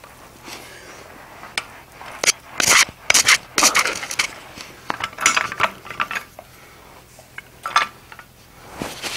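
Metal-on-metal clinks and knocks as a large adjustable wrench grips and twists a red-hot hardie blank set in the anvil. Irregular sharp clinks, several ringing briefly, come thickest between about two and four seconds in.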